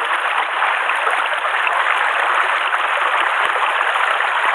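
Mountain stream running steadily over rocks, with rain falling on the water: an even, unbroken rush with no wind rumble.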